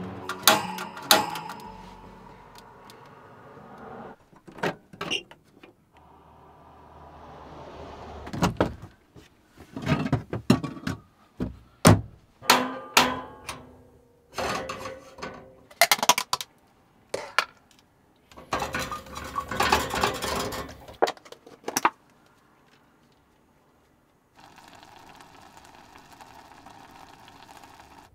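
A run of clinks, knocks and rattles, like dishes, pots and utensils being handled, with busier clusters in the middle. Near the end a steady hiss starts.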